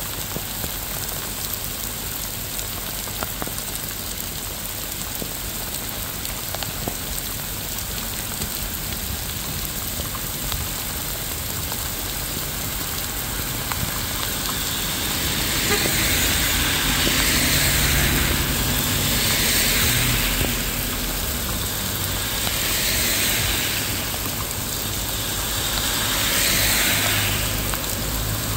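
Steady rain falling. About halfway through, a road vehicle's engine comes in with a low running hum. A hiss swells and fades about every three seconds.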